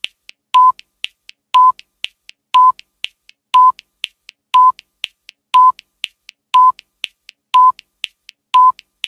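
Countdown timer sound effect: a short electronic beep once a second, with two soft ticks between each beep.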